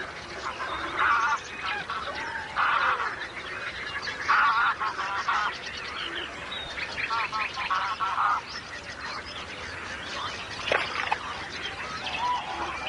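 Greylag geese honking in several short runs of nasal calls, which grow quieter over the last few seconds.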